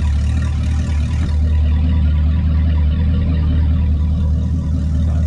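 Boat engine running steadily, a low drone.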